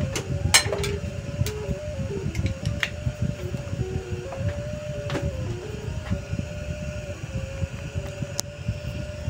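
Atomstack A5 Pro laser engraver cutting a thin wood plaque on a repeat pass. Its stepper motors whine in tones that shift up and down as the head follows the curves, over a steady low rumble, with a few sharp ticks.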